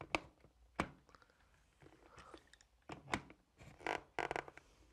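Adjustable spanner working a brass compression adaptor into the threaded inlet of a plastic concealed shower valve body as it is tightened: a few faint, sharp metal clicks and knocks, with a brief scrape about four seconds in.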